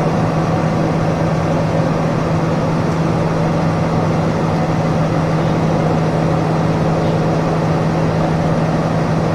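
Diesel engine of a John Deere harvest machine (combine or tractor) running steadily: an even drone with a strong, constant low hum and no change in speed.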